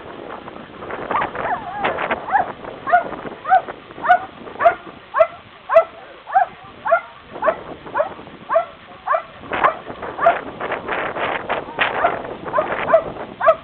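A dog barking over and over in short, high barks, about two a second, each dropping slightly in pitch, with a busier stretch near the end.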